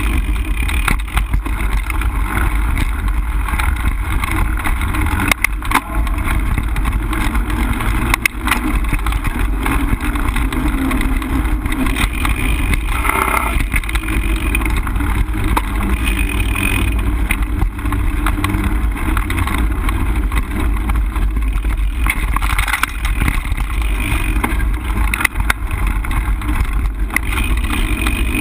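Mountain bike riding fast over a dirt singletrack, heard through a camera mounted on the bike: a steady, loud rumble of tyres and wind on the microphone, with scattered sharp clicks and rattles as the bike goes over bumps.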